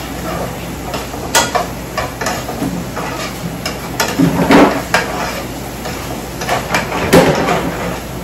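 Onions sizzling in a skillet while a utensil stirs them and scrapes the pan. A few sharp clicks of the utensil against the pan stand out, the loudest about halfway through and near the end.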